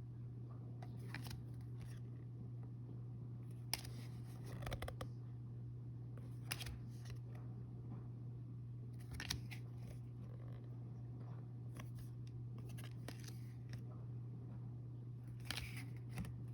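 Trading cards being handled and flipped through: faint scattered rustles and light taps, over a steady low hum.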